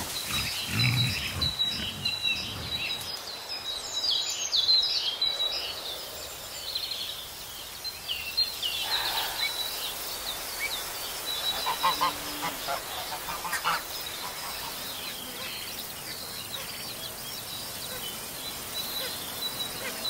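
Many small birds chirping and calling in woodland. Low grunts from foraging wild boar sound in the first few seconds.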